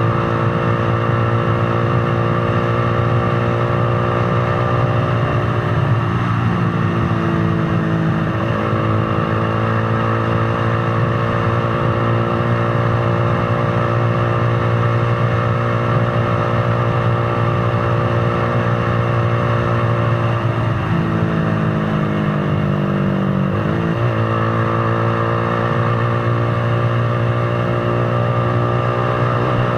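Motorcycle engine running steadily while riding, its note dipping in pitch and picking back up twice, as when the throttle is eased and reopened or a gear is changed.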